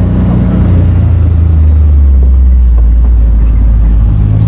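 An engine running nearby, loud and steady. Its speed drops about a second and a half in and picks up again near the end.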